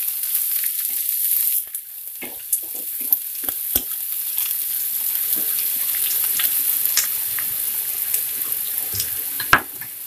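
Chopped onion frying in hot oil in a frying pan. A loud hiss as the onion hits the oil settles after a second or two into a steadier sizzle, with a few sharp clicks and taps as a spatula stirs it.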